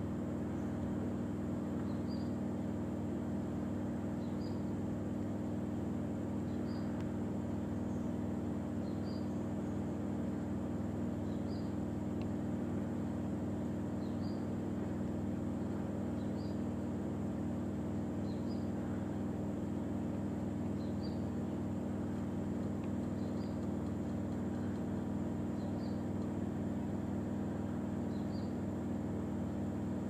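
A steady low motor hum, even in level throughout, with a short high chirp repeating evenly about every two and a half seconds.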